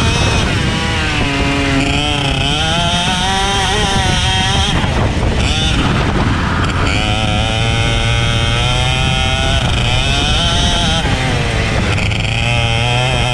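Racing kart engine running hard, its pitch climbing and dropping several times as it accelerates and slows on track. The note breaks up briefly about five seconds in.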